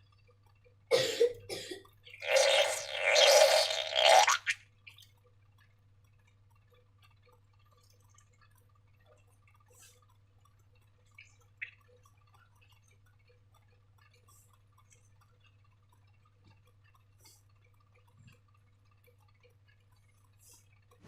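Slime being handled with wet squelching sounds: a short squelch about a second in, then a longer one lasting about two seconds. After that only a few faint small clicks.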